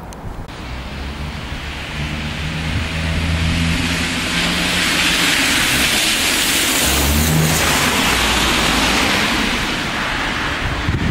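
A car driving past on the street. Its engine hum and tyre noise build over a few seconds, stay loudest through the middle, then ease off near the end.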